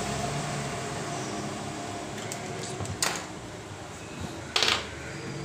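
Small handling sounds: a sharp click about three seconds in and a short scrape about a second and a half later, over a steady background hum.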